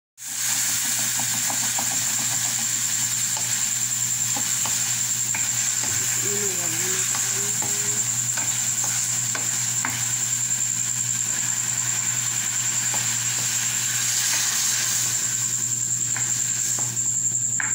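Chicken sizzling and frying in a pan while a wooden spatula stirs it, with scattered scrapes and knocks against the pan. Near the end water is poured from a kettle into the hot pan.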